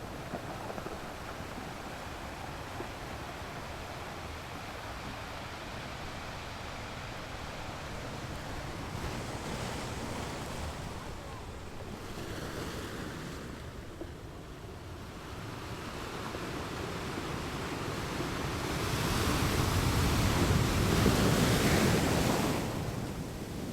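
Ocean waves washing onto a beach in a continuous surf wash, swelling gradually to the loudest break near the end and then easing back.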